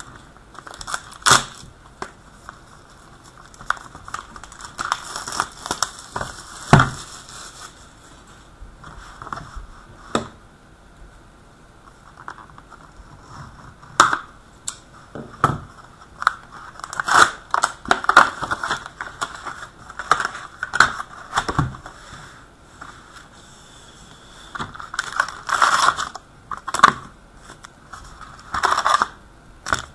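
A sealed box of trading card packs being torn open and emptied by hand: irregular crackling and crinkling of plastic wrap and foil packs, tearing of cardboard, and sharp clicks and knocks as packs are handled.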